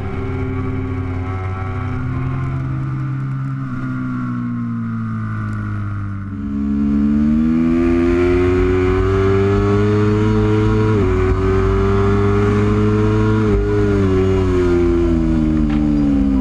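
Superbike engine at racetrack speed. Its note sinks for a few seconds, then climbs hard, with two quick gearshift steps about two-thirds and four-fifths of the way in, and falls again near the end.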